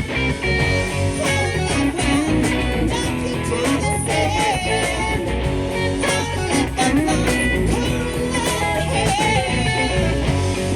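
Live rock band playing: electric guitars with bends over bass and drums.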